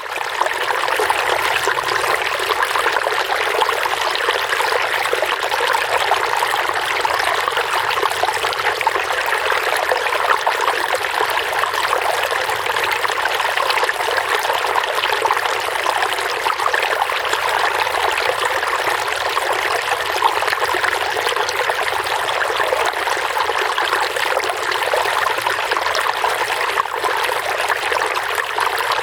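Running water trickling and splashing steadily, like a small stream or a water flow pouring over stones.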